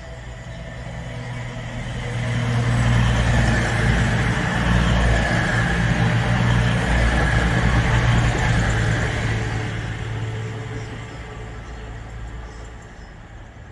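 A CrossCountry Class 220 Voyager diesel-electric multiple unit running through the station without stopping: the drone of its underfloor diesel engines and the rush of wheels on rail grow loud, hold for several seconds as it passes, then fade away.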